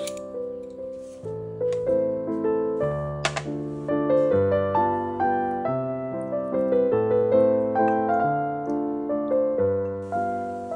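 Background piano music: a slow melody of single struck notes over low bass notes, each fading away after it is played.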